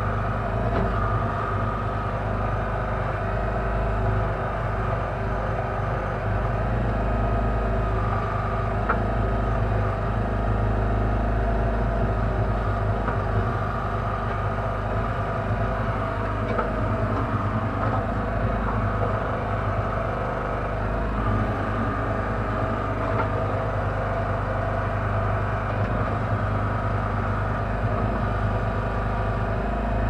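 Engine and hydraulics of a Kellfri towable backhoe running steadily under digging work, heard from inside its cab, with an even low engine hum and higher running tones that hardly change.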